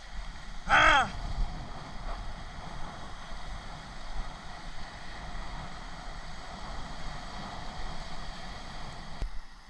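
Steady rushing of small waves washing around the legs in shallow sea water, with wind on the microphone. About a second in, a voice gives one short call with a falling pitch.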